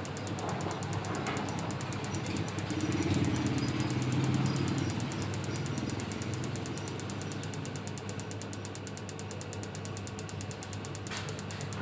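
A machine running with a steady low hum and a fast, even mechanical rattle, swelling a little a few seconds in, with a sharp click near the end.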